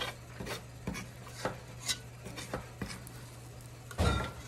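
Metal ice cream scoop scraping and clicking against the inside of a stainless steel stockpot while scooping thick no-bake cookie mixture, a scrape or click about every half second. About four seconds in comes a louder clunk from the pot, with a short metallic ring.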